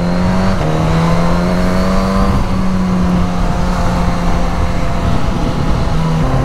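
Suzuki GSX-S1000's inline-four engine pulling under load at speed, its note climbing slowly as the bike accelerates, with a brief dip about half a second in and again near the end. Heavy wind rush from riding at motorway speed lies under it.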